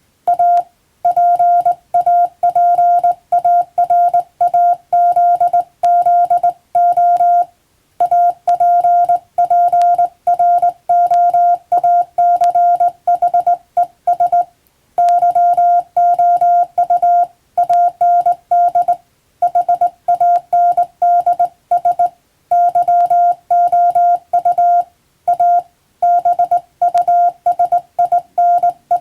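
Morse code (CW): a single steady beep tone keyed rapidly on and off in dots and dashes, with brief pauses between groups of characters.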